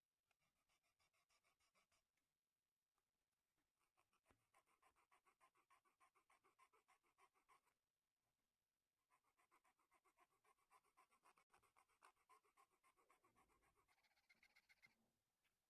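Very faint, rapid back-and-forth scratching strokes, about five a second, on paper or card. They come in three runs with short pauses between them.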